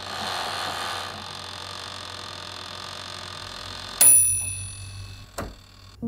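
Toaster oven running with a steady hum, then its timer bell dings once about four seconds in and rings away, signalling that the cooking time is up. A short click follows near the end.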